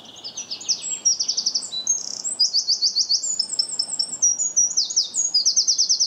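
Eurasian wren singing one loud, long song of many different clear notes and rapid trills, high-pitched throughout, that cuts off just at the end.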